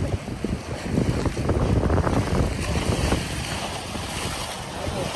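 Wind buffeting the microphone over sea waves washing against the rocks of a breakwater: a gusty low rumble that eases after about three seconds into a steadier wash of surf.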